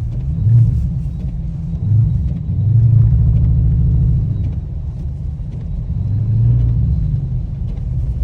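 Dodge Scat Pack's 6.4-litre HEMI V8 running under throttle with a deep rumble, revs swelling and easing several times as the car is stuck in snow with no traction.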